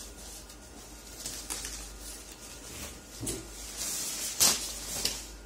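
Polyethylene protective sleeve rustling and crinkling as a monitor panel is pulled out of it by hand, in a run of uneven rustles with the sharpest one about four and a half seconds in.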